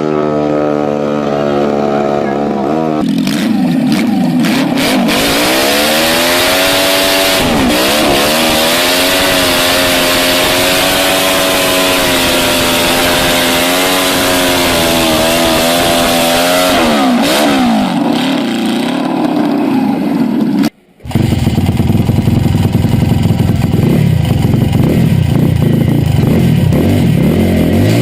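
Small motorcycle engine, likely a turbocharged pit bike's, running loud and revving up and down repeatedly. About three-quarters through the sound briefly cuts out, then a lower, steadier engine note follows.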